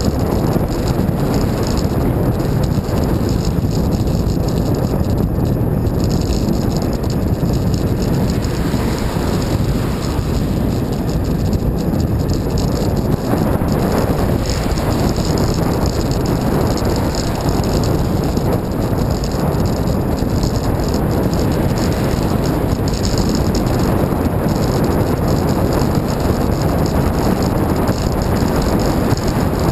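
Steady wind rush and road rattle on a moving bicycle's onboard camera microphone.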